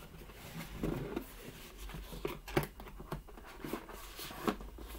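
Cardboard shipping box being folded and handled, a run of irregular light creases, taps and rustles with a few sharper snaps in the second half.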